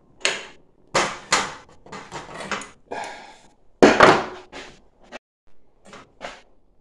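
Metal clanks, knocks and scrapes of kitchen handling: a small saucepan knocked about while gripped in locking pliers, then the pliers set down on the countertop about four seconds in, the loudest clank.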